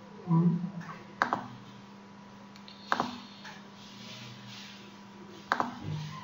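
Three sharp computer mouse clicks, spaced about one and a half to two and a half seconds apart, with a brief low sound near the start. A faint steady electrical hum runs underneath.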